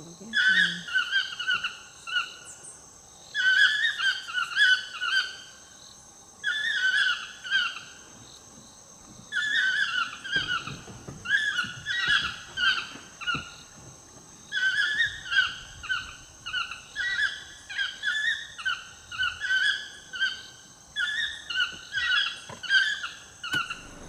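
Yellow-throated toucans calling: loud yelping phrases, each a quick run of notes, given in repeated bouts about two seconds long with short pauses between.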